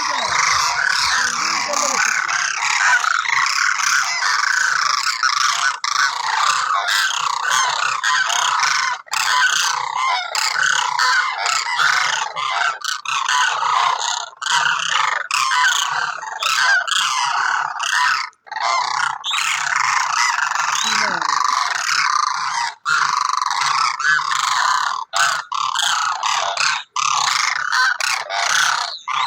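A large flock of demoiselle cranes (koonj) calling all at once: a dense, continuous chorus of overlapping calls, broken by a few brief sudden gaps.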